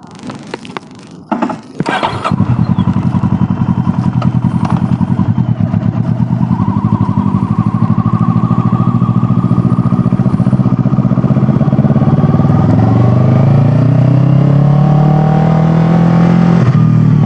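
Kawasaki ER-6n parallel-twin engine starting about two seconds in after a few knocks, running with an even beat, then rising in pitch as the bike accelerates away, easing off near the end.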